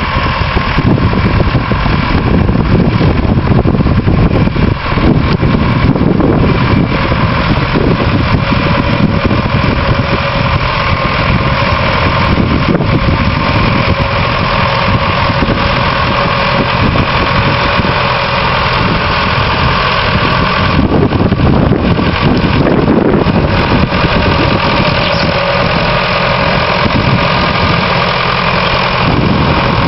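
Massey Ferguson 1080 tractor's four-cylinder Perkins diesel engine running steadily under load while pulling a mounted plough through the soil.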